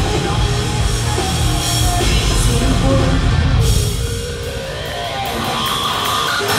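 Hard rock band playing live through a PA, with distorted electric guitars and a drum kit, heard from within the crowd. The music dips a little in level about four seconds in, then comes back up.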